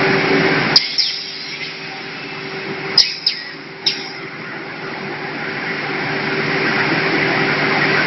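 Full-auto vacuum forming, cutting and stacking machine for PS foam ceiling tiles running with a steady hum and hiss. The hiss cuts off suddenly about a second in and builds back up over the last few seconds. Sharp clicks come about a second in and three times around three to four seconds.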